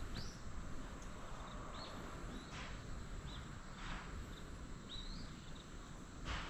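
Footsteps of someone walking, a soft step about every second and a bit, with a small bird giving short chirps every second or two over steady outdoor background noise.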